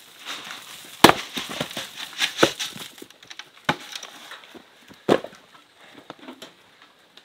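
Axe splitting a firewood round on a chopping block: one sharp strike about a second in, the loudest sound, followed by a clatter of wood. A few more sharp wooden knocks and thuds follow.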